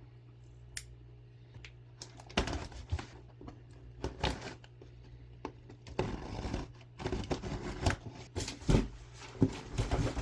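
Packaging being handled and opened: irregular rustling, crinkling and small clicks and taps, busier in the second half, over a steady low hum.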